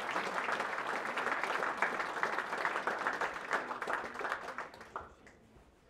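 Audience applauding, the clapping thinning out and dying away about five seconds in.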